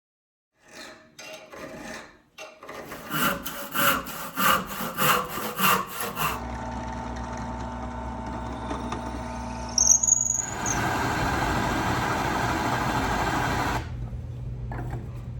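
Quick back-and-forth hand-tool strokes, about two a second, like filing or sawing steel. Then an electric workshop machine starts and runs with a steady hum, louder with a grinding noise for about three seconds before it eases off.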